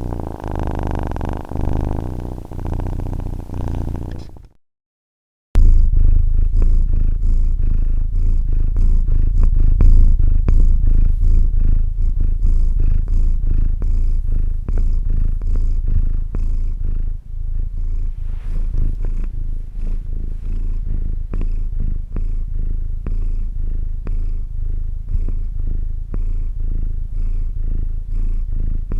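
Domestic cat purring close up, a steady low rumble with a rapid flutter. About four seconds in it stops for roughly a second of silence, then a different cat's purr starts, louder and deeper.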